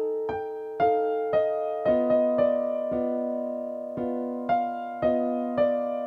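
Slow piano-like keyboard music: single notes and chords struck roughly every half second, each left to ring and fade.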